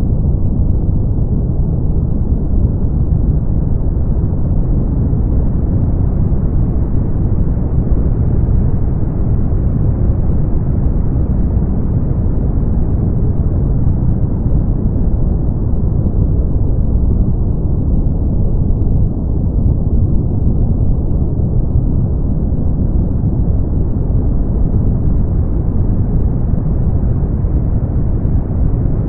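Continuous brown noise: a steady, deep hiss with most of its weight in the bass and little treble. It brightens slightly and dulls again over many seconds.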